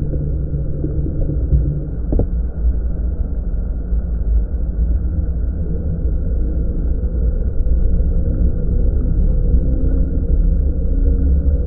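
Steady low rumble of riding noise picked up by an action camera on a moving electric bike, with a single short knock about two seconds in.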